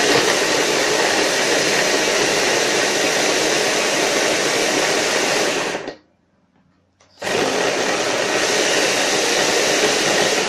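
Electric blender running loaded with pieces of sponge cake, grinding them into crumbs. It stops abruptly about six seconds in and starts again a second later.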